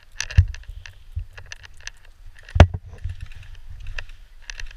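Footsteps and rustling of someone moving across wet grass and into brush, with irregular clicks and low thumps; a sharp knock about two and a half seconds in is the loudest sound.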